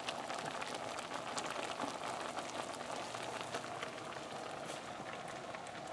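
Seafood reduction of shrimp heads, crab and lemons simmering in a stainless steel pot: a steady fine bubbling with many tiny pops.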